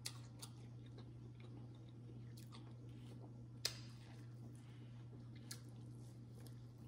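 Close-miked mouth sounds of biting and chewing corn on the cob from a seafood boil: soft wet chewing with a few sharp clicks, over a faint steady low hum.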